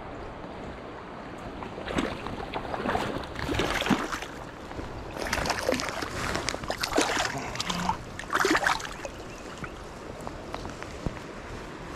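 Stream water splashing and sloshing close by in the shallows, in irregular surges from about two seconds in until about nine seconds, over the steady rush of the creek.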